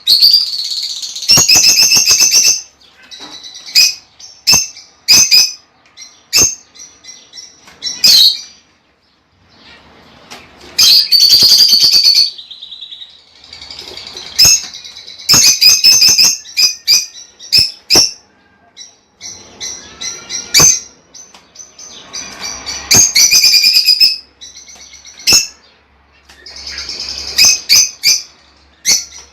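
Lovebirds chirping and calling: loud, shrill chirps in bursts of a second or two, with short sharp single calls between them.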